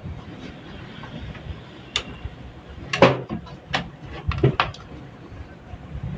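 A handful of sharp clicks and knocks from plastic connectors and the metal computer case being handled as power cable connectors are plugged into the motherboard, the loudest about three seconds in.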